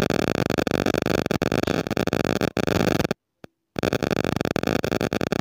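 Loud crackling static with a steady electrical buzz. It cuts out abruptly for about half a second a little after three seconds in, then comes back.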